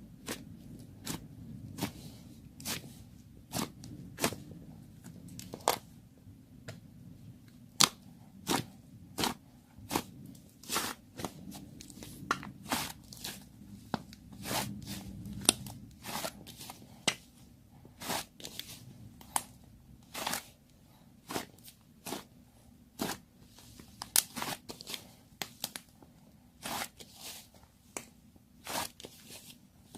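Crisp, sharp crunches or snips, irregularly spaced at about one or two a second, over a faint low hum.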